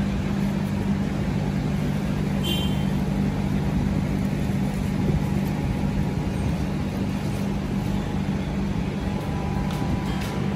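Propane jet burner under a large cooking pot, burning with a steady low hum.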